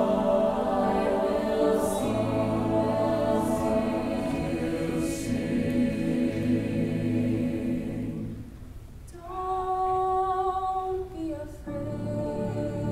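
Choir singing unaccompanied in long, held chords. About eight seconds in the sound thins almost to nothing, then a higher chord with fewer voices is held for a couple of seconds before the fuller choir comes back in near the end.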